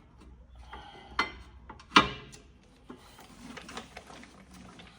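A few sharp metal knocks and clicks, the loudest about two seconds in, then light rattling: brake parts and tools being handled as a new rear brake rotor goes onto the hub.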